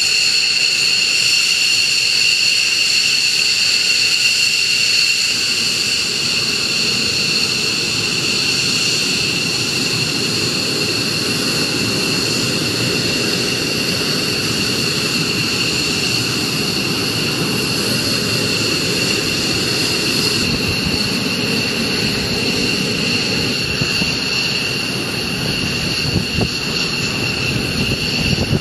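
Twin Pratt & Whitney F100 turbofans of F-15E Strike Eagles running at ground idle: a steady jet whine of high whistling tones over a low rumble.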